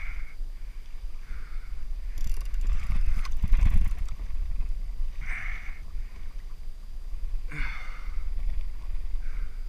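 Wind buffeting the microphone, with water slapping against a plastic kayak hull every second or two. A stretch of rapid mechanical clicking runs from about two seconds in to about four seconds in.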